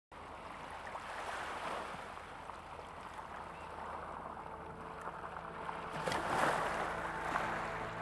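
Small waves washing in over a pebble beach, the surf swelling about a second in and again more strongly around six seconds. Faint steady music tones come in near the end.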